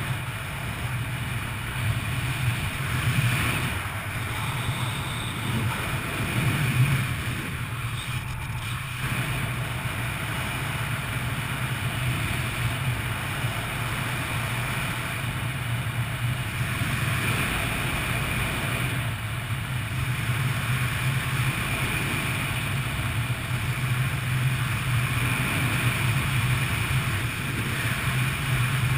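Wind rushing over a helmet-mounted camera's microphone during a parachute descent under an open canopy: a steady rush with a low rumble that swells slightly a few times.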